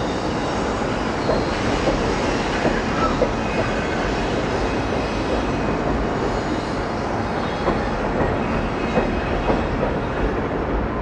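Freight train cars rolling past: a steady rumble with irregular clicks and clanks of wheels over the rail.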